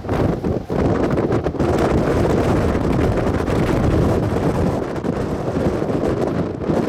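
Strong gusty wind buffeting the microphone, a heavy low rumble that surges and dips.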